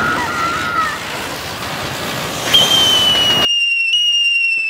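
Ground fireworks fizzing and hissing, with a short wavering whistle near the start; a little past halfway a whistling firecracker starts a long, steady high whistle that slides slightly lower in pitch.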